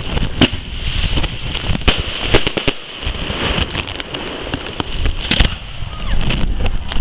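Aerial fireworks going off: irregular sharp bangs of shells bursting, several in quick succession about two seconds in and another cluster near the end, over a steady hiss.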